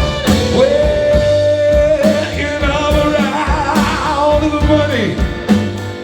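Live band music with singing: one long held note with a wavering stretch past the middle, over drum beats and bass.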